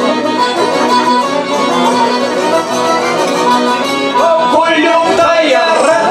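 Live Albanian folk band playing an instrumental passage: a violin with a plucked long-necked lute and sustained held notes, with no singing.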